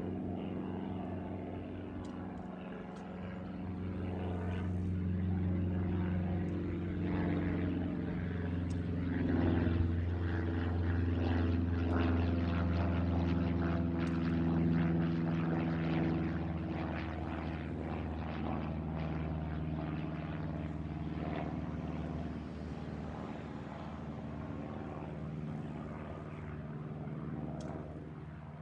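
Cessna 152 light plane flying overhead, its four-cylinder piston engine and propeller droning steadily. The drone grows louder to a peak about halfway through, then slowly fades as the plane moves away.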